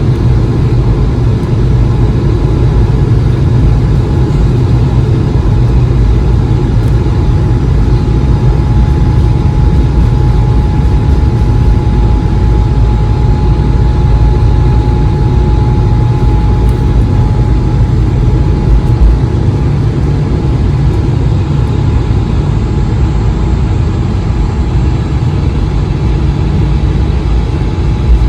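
Inside the cabin of an Airbus A220-300, its Pratt & Whitney PW1500G geared turbofan engines running steadily: a loud, deep rumble with a thin, steady whine on top.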